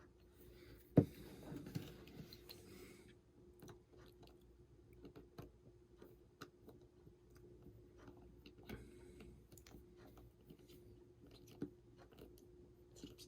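Faint small clicks and ticks of a precision screwdriver backing out the two pentalobe screws at the bottom of an iPhone 6, with one sharper knock about a second in, over a faint steady hum.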